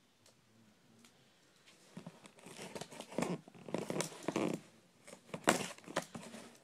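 Tape being torn and a cardboard box being pulled open. A run of tearing and rustling starts about two seconds in, and a sharper tear comes near the end.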